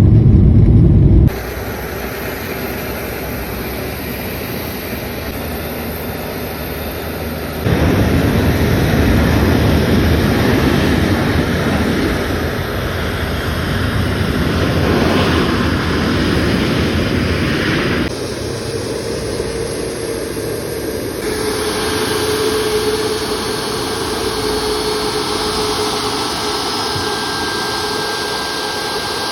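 Boeing 737 MAX 8's CFM LEAP-1B turbofan engines running on a landing, a steady jet noise that jumps abruptly in level and character several times; from about two-thirds of the way through, a steady whine sits over the noise.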